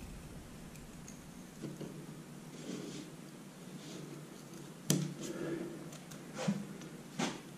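A utility knife trimming the edges of strips glued to a wall: faint scraping with a few sharp clicks, the clearest about five seconds in and two more near the end.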